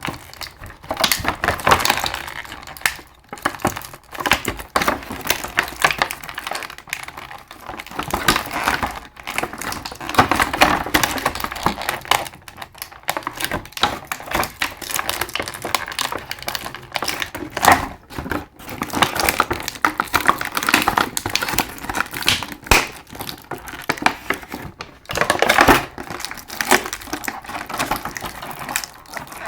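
Stiff plastic blister packaging being handled and pulled apart, crinkling with dense, irregular clicks and cracks, as an action figure and its accessories are worked free of the plastic tray.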